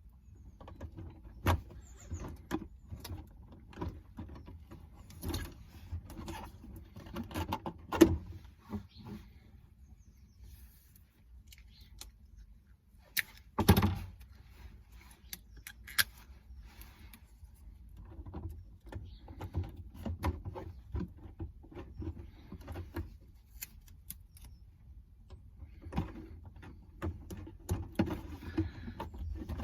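Adhesive tape being pulled off the roll and wrapped around an action camera on an RC car, with irregular clicks, knocks and rustles of hands working. The sharpest knock comes about 8 s in and a longer, louder stretch of tape noise about 14 s in.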